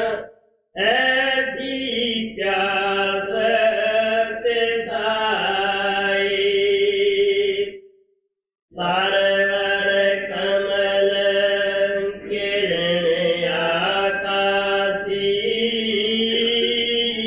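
A man's voice chanting a devotional verse in long, held notes, with no instruments; two phrases, broken by a short pause about eight seconds in.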